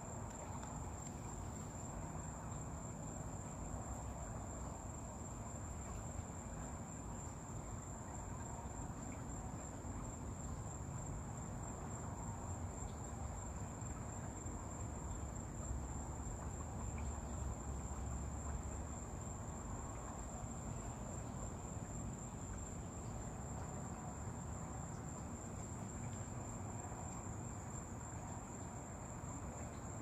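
Crickets trilling in one continuous, steady, high-pitched tone over a low background rumble.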